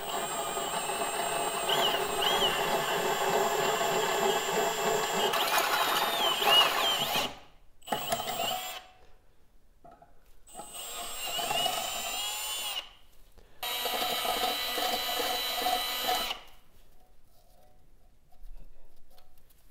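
Power drill boring out the hole in a thick steel bracket tab held in a bench vise, enlarging it a little at a time so a bolt can reach the rivet nut without binding. It runs in bursts: one of about seven seconds, then several shorter runs, with the motor's pitch wavering as the bit cuts, and it stops a few seconds before the end.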